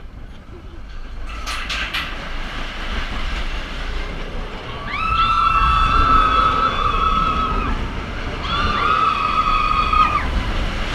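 Roller coaster train rumbling along its track, with a few sharp clacks about one and a half seconds in. The rumble grows louder as the train speeds up into the dark, and two long, high-pitched squeals are heard over it, one about five seconds in and the other near the end.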